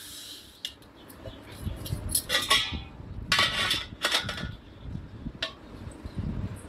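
A knife cutting and scraping through the thick, spiky rind of a raw jackfruit in several short strokes, with soft knocks underneath.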